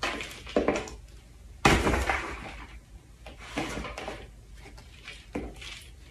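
A small plastic scoop digging into a plastic tub of potting soil and tipping the soil into a plastic plant pot: several separate scrapes and pours, the loudest about two seconds in.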